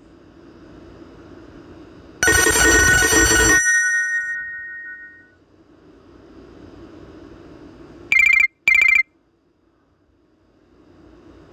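Nokia E72 ringtone played through a Samsung Galaxy A51's speaker. A loud chord-like hit comes about two seconds in and its tones ring out over the next two seconds. About eight seconds in come two short high beeps.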